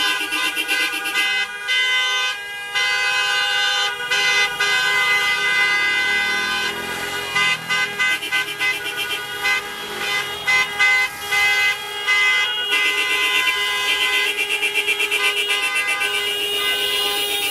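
Several car horns honking together, overlapping in held blasts broken by short gaps.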